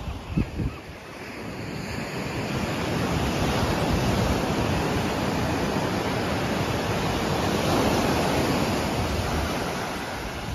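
Ocean surf: waves breaking and washing up a sandy beach in a steady rush that builds over the first few seconds and eases near the end.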